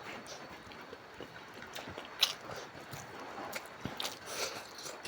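A person chewing and biting food close to the microphone: irregular small clicks and moist mouth noises, with one sharper, louder click a little over two seconds in.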